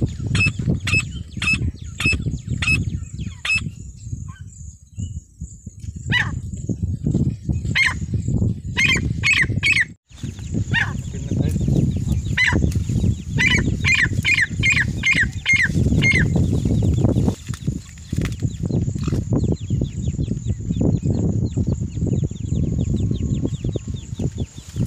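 Female francolin (teetar) calling in runs of short, sharp repeated notes, about two a second, with pauses between runs and fainter, quicker notes near the end, over a steady low rumble.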